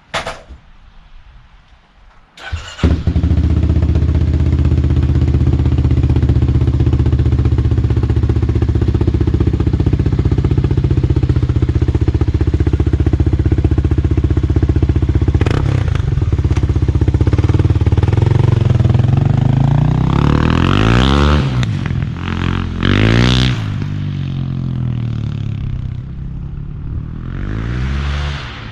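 Kawasaki KLX300R single-cylinder four-stroke dirt bike engine, fitted with a new Pro Circuit T6 full exhaust. It starts about three seconds in and idles steadily, then is blipped twice with the throttle about twenty seconds in and once more lightly near the end.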